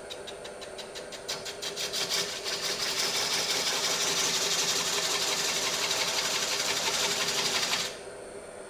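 Wood lathe running while a shop-made tenon tool cuts into a spinning cottonwood platter. At first it gives a quick run of taps as it touches the surface, then it settles into a loud, steady cutting hiss that stops abruptly near the end, leaving the lathe's hum.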